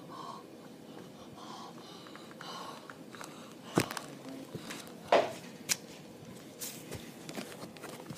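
Handling noise from a phone camera being picked up: faint rustling, then a few sharp knocks and taps, the loudest about four and five seconds in.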